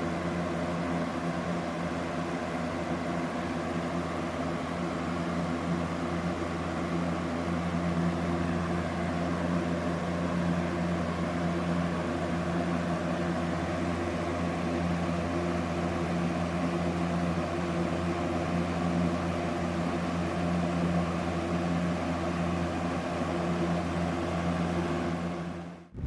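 Aerospeed BX100 box fan running: a steady motor hum with the rush of air from the blade. It cuts off abruptly just before the end.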